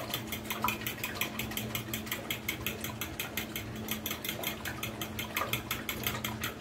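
A fork beating cream and egg in a small glass bowl: quick, even clicking strokes of metal against glass, about seven a second.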